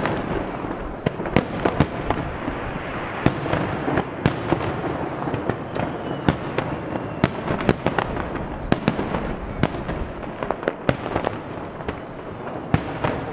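Aerial fireworks shells bursting in quick succession: many sharp bangs at irregular intervals, often two or three a second, over a continuous crackle and rumble from the display.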